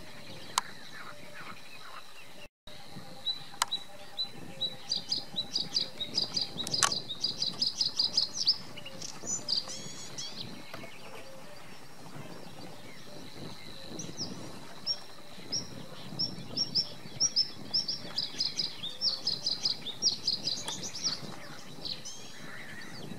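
Male bluethroat singing: two long phrases of quick, repeated high notes, the first a few seconds in and the second in the latter half.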